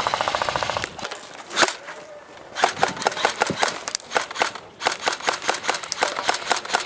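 Airsoft guns firing: a rapid full-auto burst that stops about a second in, then scattered single shots and short quick strings of shots.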